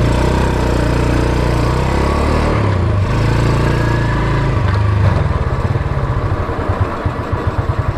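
Motorcycle engine pulling away: its pitch climbs twice, dropping back around two and a half and five seconds in, then it runs on at a steady speed.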